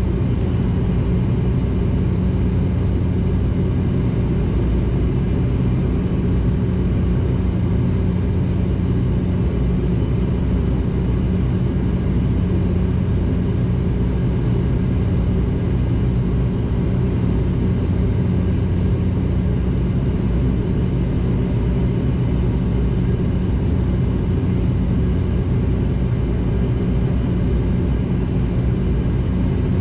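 Steady drone of a Dash 8-400's Pratt & Whitney PW150A turboprop engines and propellers heard inside the cabin: a constant low hum with steady low tones and no change in level.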